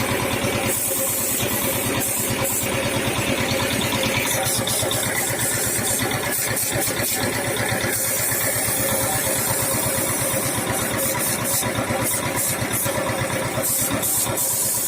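Small piston air compressor running steadily with a rapid, even pulse, while a paint spray gun hisses in short bursts that come and go.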